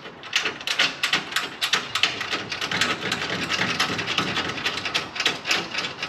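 Hand ratchet wrench clicking rapidly, about six sharp clicks a second, as a mounting bolt is run in. The clicking stops just before the end.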